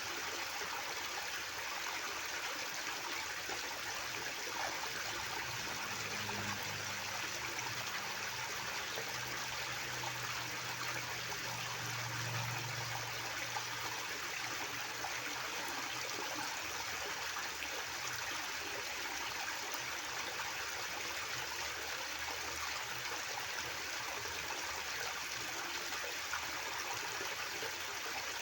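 River water flowing and babbling in a steady, even rush.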